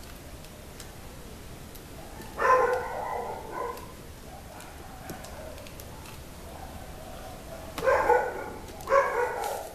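A dog barking three times: one bark about two seconds in, then two more in quick succession near the end.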